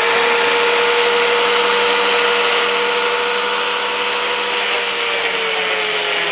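Electric angle grinder fitted with a homemade paper cutting disc running at full speed, a steady high whine over a loud hiss, with the disc held against a coconut shell. The pitch dips slightly near the end.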